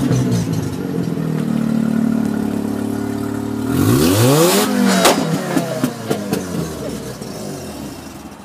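Mazda RX-7 FC's 13B rotary engine idling through its exhaust. About four seconds in it is revved sharply, the pitch climbing and falling back, with a smaller blip just after, then it settles and fades.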